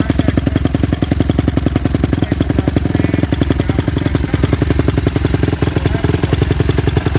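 2009 Suzuki RM-Z250's single-cylinder four-stroke engine idling steadily, a rapid, even putter.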